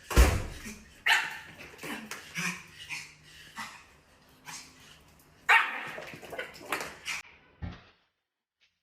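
A dog barking repeatedly in irregular single barks for about eight seconds, stopping abruptly near the end.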